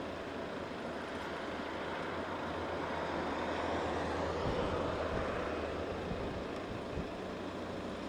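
Airbus A320 jet engines heard from the ground as a steady rushing roar that swells to its loudest about halfway through and then eases slightly as the airliner passes.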